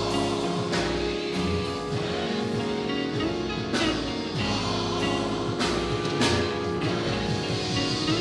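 Church band music: sustained chords on keyboard and guitar with drums, with a few cymbal or drum hits.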